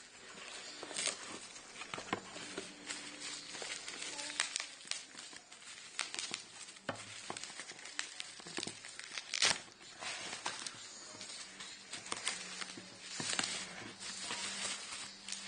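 Packaging being handled and unwrapped: irregular crinkling and rustling with scattered sharp crackles and light knocks.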